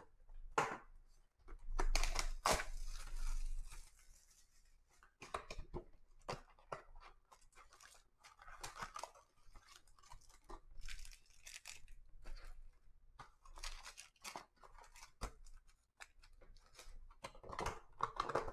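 A cardboard trading-card hobby box torn open and its foil-wrapped packs handled, with irregular bursts of tearing, crinkling and rustling, loudest about two to four seconds in.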